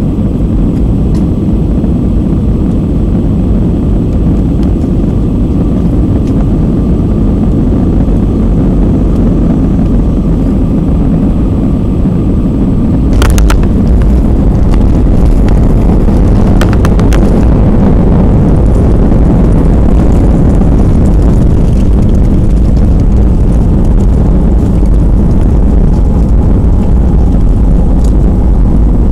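Steady engine and airflow noise inside a jet airliner's cabin during the final approach and landing. About 13 seconds in the noise steps up with a few sharp knocks as the wheels touch down. It stays louder through the landing roll, with the spoilers raised on the wing.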